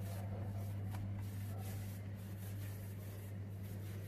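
Hands rolling and pressing a tahini-filled yeast-dough rope against a countertop to thin it, a soft rubbing and squishing, over a steady low hum.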